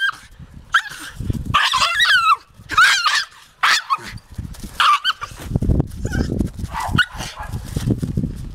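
Jagdterrier (German hunting terrier) yelping and whining in excited play: several short, high, wavering cries in the first half, followed by lower, rougher sounds in the second half.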